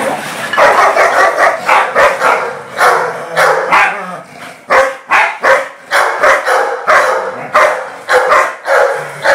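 Dogs barking: quick, overlapping barks for the first few seconds, then a run of single sharp barks about two a second.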